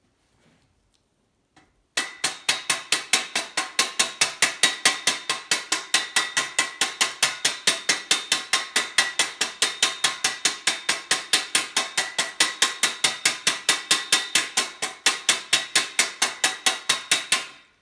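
A tool ratcheting while a bottom bracket is tightened into a bicycle frame: rapid, evenly spaced clicks, about five a second, that start about two seconds in and run on steadily, stopping just before the end.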